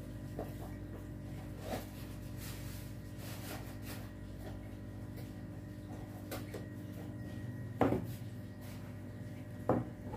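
Two sharp knocks about two seconds apart near the end, as the corrugated aquarium hose and submersible power head are handled on the table, over a steady low hum with a few faint clicks.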